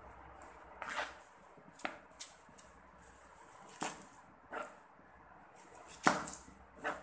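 Kitchen knife chopping vegetables on a wooden cutting board: about eight sharp, irregular knocks, the loudest about six seconds in.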